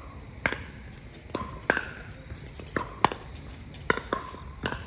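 Pickleball rally: the hollow plastic ball popping off paddles and bouncing on the hard court, sharp knocks coming about every half second to a second.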